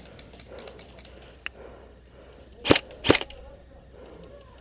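Two sharp airsoft gun shots about half a second apart, preceded by a faint click.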